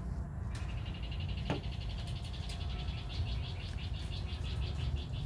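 An animal's rapid, high-pitched pulsing trill that starts about half a second in, over a steady low rumble, with a single click about a second and a half in.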